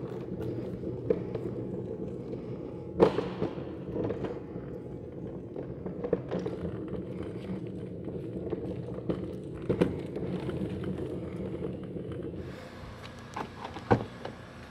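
Casters of a black plastic utility cart rolling over a concrete floor, a steady rough rumble broken by occasional knocks as it jolts. The rolling stops about twelve seconds in, and a couple of knocks come near the end.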